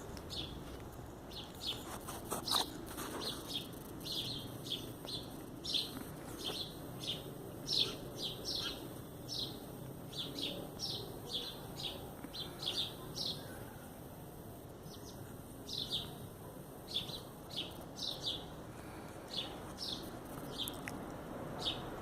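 Birds chirping: many short, high chirps repeated irregularly over a faint steady background.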